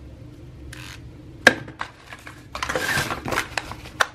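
Small plastic and metal items being handled and set down in an open suitcase: a sharp click about a second and a half in, a rustle around three seconds, and another click near the end.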